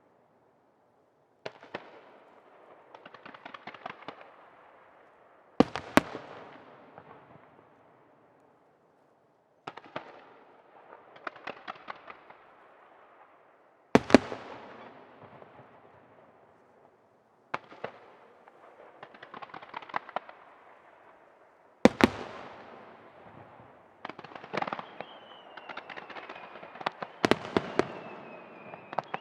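Aerial fireworks shells bursting, each sharp report followed by a few seconds of crackling stars, at first about every four seconds. After about 24 seconds the bursts come faster, overlapping, and a high thin whistle falls slowly in pitch.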